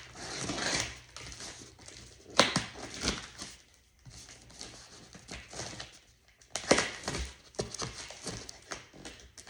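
Cardboard shipping box being opened and its packed contents handled: scattered sharp knocks and clicks with short bursts of rustling, busiest near the end.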